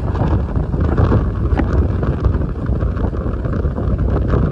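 Heavy wind buffeting the microphone, a constant low rumble.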